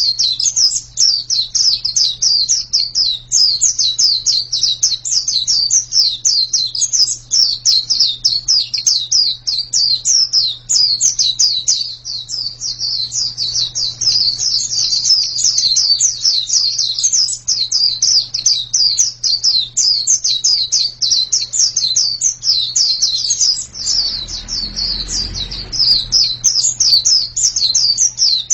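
White-eye (pleci) singing a long, unbroken stream of fast, high chirping notes, many per second, with a faint steady low hum beneath and a brief low rumble near the end.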